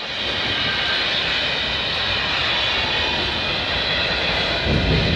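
A manifest freight train's tank cars and covered hoppers rolling past, making a steady rush of steel wheels on rail. A deeper rumble comes in near the end.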